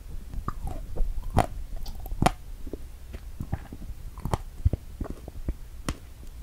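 Close-miked chewing of a cream-topped strawberry: irregular wet mouth smacks and clicks, with a few sharper ones spread through.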